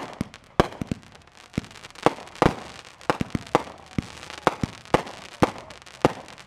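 Aerial fireworks bursting in quick succession: a run of sharp bangs, about two or three a second and irregularly spaced, each with a short echoing tail.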